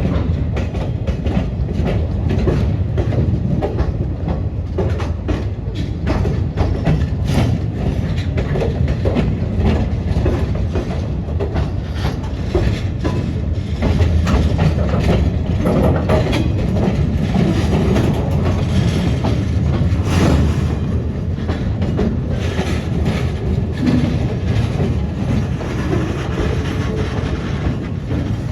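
Freight train rolling past: a steady low rumble with the clickety-clack of wheels over rail joints.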